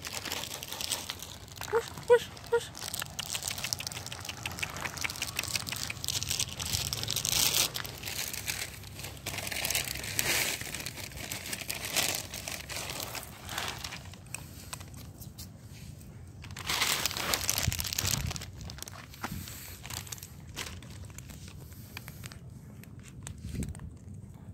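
Clear plastic bag of dry cat food crinkling and rustling in several bouts as the kibble is poured out onto the ground.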